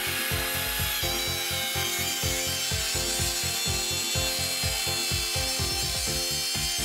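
Router running on a Sears Craftsman Router Crafter, its bit cutting a spiral groove along a wooden blank in a steady whine, under background music with a regular beat.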